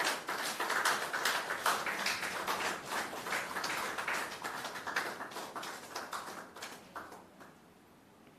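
A small group of people applauding with hand claps that thin out and stop about seven seconds in.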